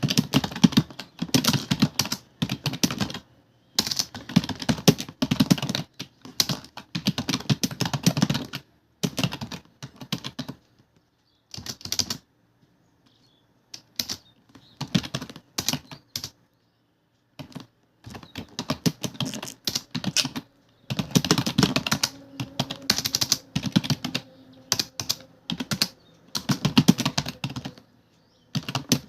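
Fast typing on a computer keyboard: dense runs of rapid keystrokes broken by brief pauses, with two lulls of a second or two near the middle.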